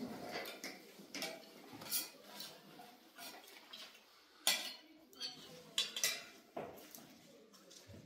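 Irregular clinks and knocks of hard objects being handled, a dozen or so sharp strikes spread unevenly, like dishes or utensils being set down and moved.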